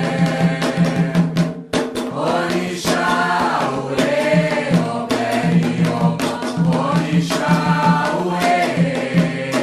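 A chorus of voices singing a Candomblé ponto (ritual chant) for Xangô over a steady beat of struck percussion.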